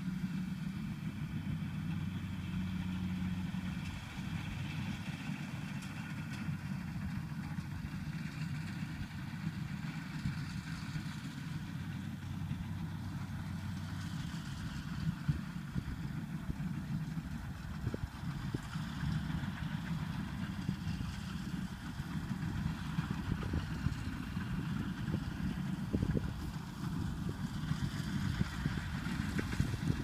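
Rice combine harvester's engine running steadily, a low hum. The hum is even for the first half, then grows rougher, with a few brief knocks.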